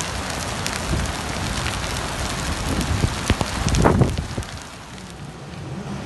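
Heavy rain falling on paving and bare ground: a steady hiss with many sharp drop taps. A gust of wind buffets the microphone about four seconds in, and after it the rain sounds quieter.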